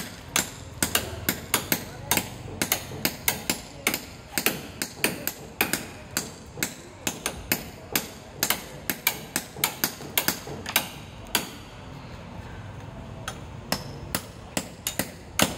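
Hammer blows struck in a quick steady rhythm, about three a second, each a sharp ringing hit, with a pause of about two seconds near the end before the hammering resumes.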